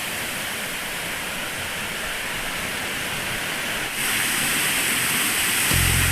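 Rushing water of a waterfall, a steady hiss that steps louder about four seconds in. A low steady tone comes in near the end.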